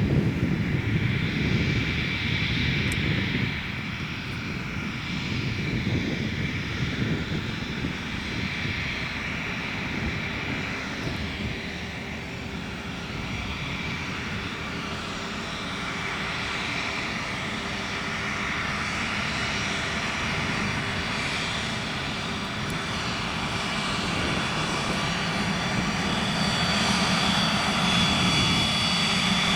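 Cessna Citation CJ2+ business jet's twin turbofan engines running, a steady rush with a high whine, growing louder toward the end.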